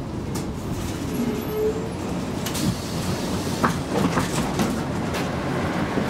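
Gothenburg M29 tram running, heard from inside the car: a steady rumble of wheels and motor with a faint shifting whine, broken by a few sharp clicks and rattles, the loudest about three and a half seconds in.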